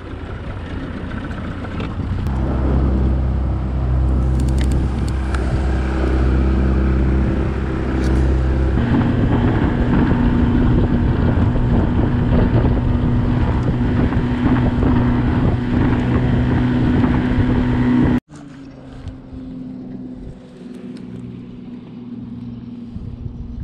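Inflatable boat's motor running steadily under way, with wind on the microphone. Its tone changes about nine seconds in. After a sudden cut a few seconds later it runs quieter.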